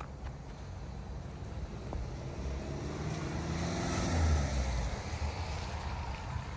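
A car driving past on the street, growing louder to a peak about four seconds in and then fading away.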